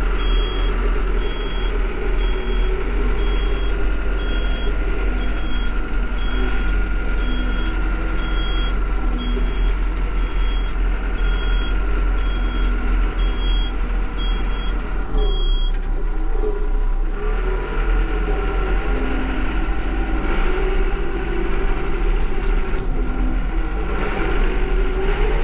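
Yanmar YT359 tractor's diesel engine running steadily, heard from inside the cab. An electronic warning beeper sounds about once a second and stops about two-thirds of the way through.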